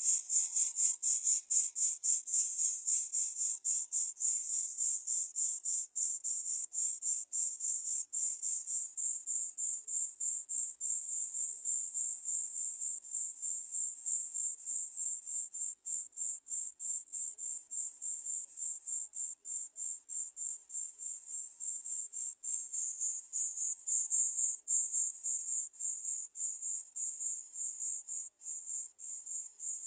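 High-pitched insect chirping, a rapid even pulse of about four chirps a second.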